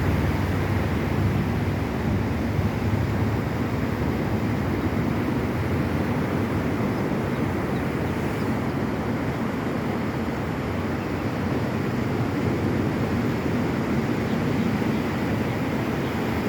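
Ocean surf breaking on a beach: a steady low rumble of waves.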